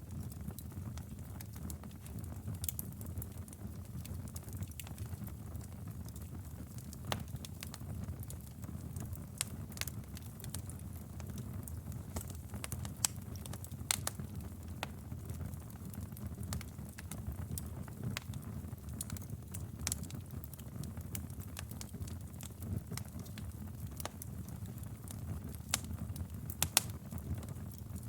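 Wood fire in a fireplace crackling, with irregular sharp pops over a steady low rumble of flames.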